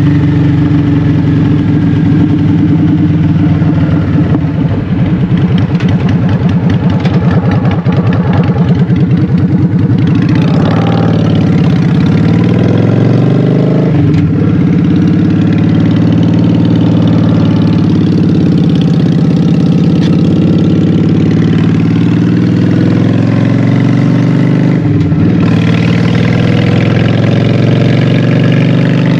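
Honda Shadow 750's V-twin engine running through Vance & Hines Short Shots exhaust while riding, its pitch rising and falling with the throttle, with brief dips about 14 and 25 seconds in.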